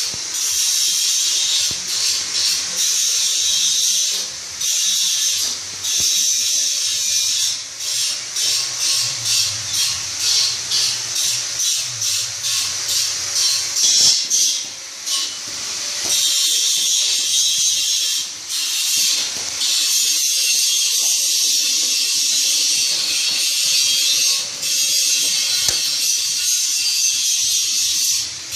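Motorised pandan-leaf cutting machine running: a steady, high-pitched hiss broken by many brief dips, busiest in the middle stretch, with a faint low hum underneath.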